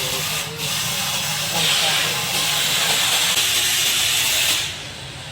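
Steady rushing hiss from a tankless gas water heater in operation. It drops to a lower level near the end.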